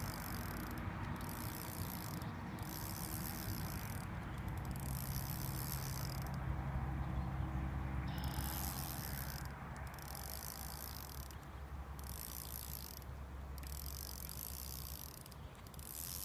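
Fishing reel being cranked in short spells with brief pauses, its gears whirring and clicking as a jigged lure is retrieved. A low rumble sits underneath for several seconds midway.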